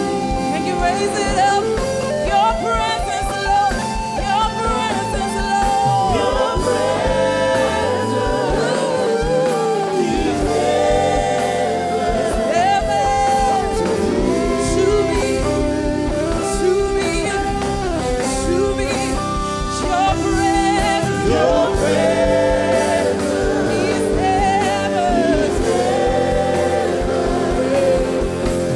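Gospel praise-and-worship singing: a small group of singers on microphones over a live band with keyboards and drums, keeping a steady beat. The bass and drums drop away briefly about eight seconds in, then come back.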